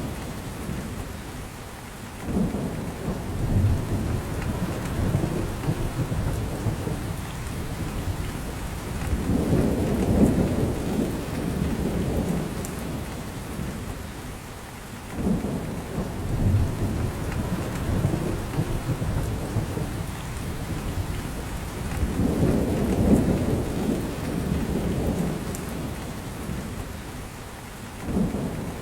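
Steady rain falling in a spruce forest, drops pattering down from the branches, with a low rumble that swells up about every six to seven seconds and slowly fades.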